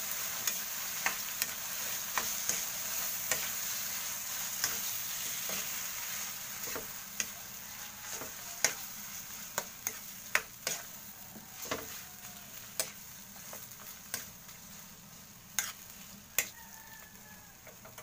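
A metal ladle stirs and scrapes mashed eggplant with tomato and onion in a wok on the burner, clinking against the pan about once a second over a steady sizzle. The sizzle fades gradually.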